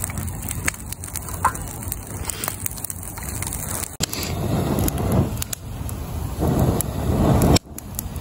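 Kindling fire in a steel fire bowl crackling and snapping as it catches, with scattered sharp pops. Swells of low rumble come in the second half.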